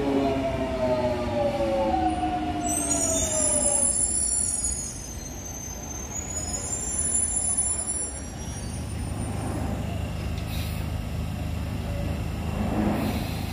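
London Underground Jubilee line 1996-stock train slowing down: its traction motors whine in several tones that fall steadily in pitch over the first four seconds, overlapped by a high squeal of brakes and wheels for a few seconds as it comes to a halt. A low steady hum follows.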